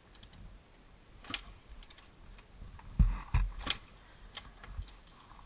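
Scattered metallic clicks and knocks from handling a dirt bike that won't start, with a heavy thump about three seconds in. No engine catches.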